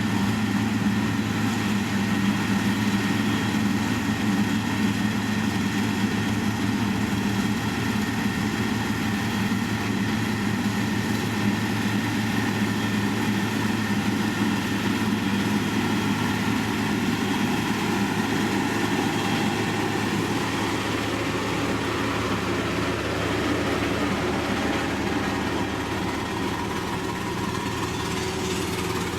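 Heavy diesel engine of road-building machinery, a motor grader or road roller, running steadily. It gets slightly quieter near the end.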